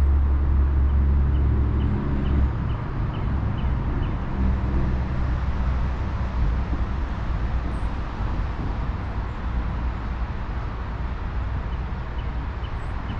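Steady rushing of shallow creek water, with a low rumble under it that is strongest for the first couple of seconds and then eases off.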